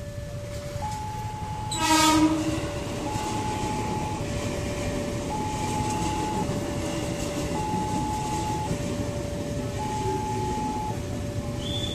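Level-crossing warning alarm alternating between a higher and a lower tone, each held about a second. About two seconds in comes a short, loud horn blast from a JR 205-series electric commuter train, then the steady rumble of the train running past.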